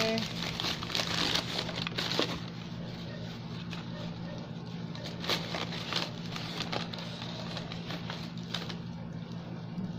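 Tissue paper and plastic packing wrapping crackling and rustling as they are handled and pulled from a cardboard box, busy for the first couple of seconds, then scattered rustles. A steady low hum runs underneath.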